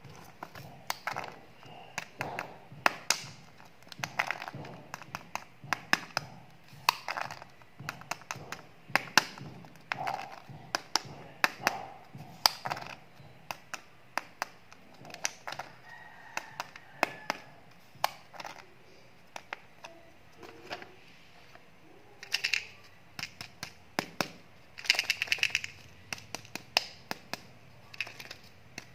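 Plastic candy containers and foil-wrapped candy eggs handled by hand: scattered clicks and taps of plastic with foil crinkling. Twice near the end there is a denser run of crinkling.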